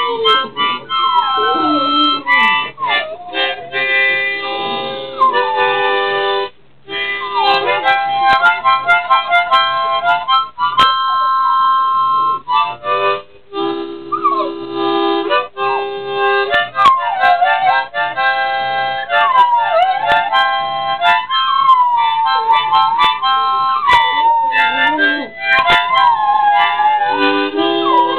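Harmonica played in chords, with two Border Terrier puppies howling along. Their howls slide up and down in pitch over the held notes. The playing breaks off briefly twice.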